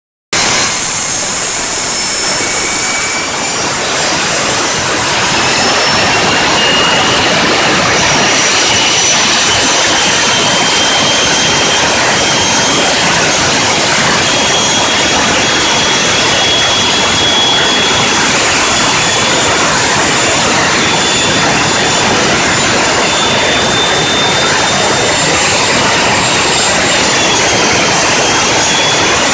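Boeing 727's Pratt & Whitney JT8D turbofan running on the ground: a loud, steady rush of jet noise with a high turbine whine. The whine climbs slowly in pitch and dips briefly near the end, and a brighter hiss stands out for the first three seconds.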